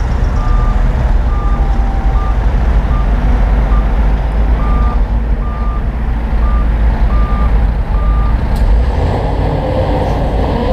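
Heavy construction machine's diesel engine running loudly with its reversing alarm beeping at one steady pitch, about every two-thirds of a second. The beeping stops about eight seconds in.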